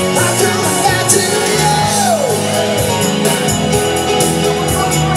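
Live rock band in a pub playing, with a strummed acoustic guitar and an electric guitar over a steady beat. A voice slides down in pitch about two seconds in.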